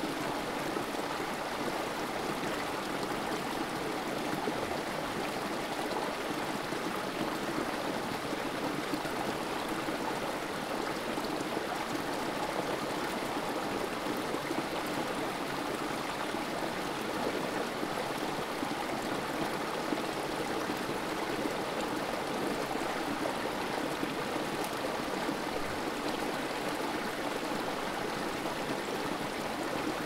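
Creek water flowing steadily and trickling over fallen branches, an even rush of running water with no breaks.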